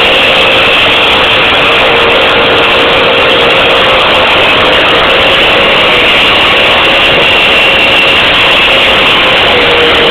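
A motor runs steadily with a constant whine while the wreck is winched onto a flatbed by cable.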